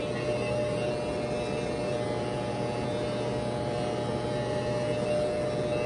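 Corded electric hair clippers running with a steady hum while cutting hair.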